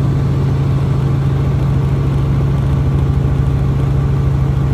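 Robinson R44 helicopter in cruise flight, heard from inside the cabin: the steady drone of its piston engine and rotors, loud and unchanging.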